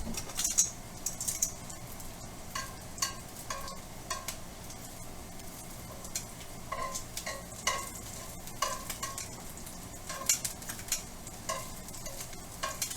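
Utensil scraping and clinking against a frying pan as cooked bacon is lifted out, a dozen or so irregular knocks over a faint steady sizzle of bacon fat.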